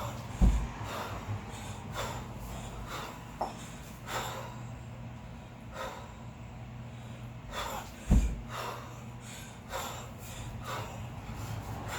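A kettlebell lifter's sharp, forceful breaths repeating every second or so through a double 16 kg long cycle set, with two deep thuds about eight seconds apart, one per rep, as the bells land.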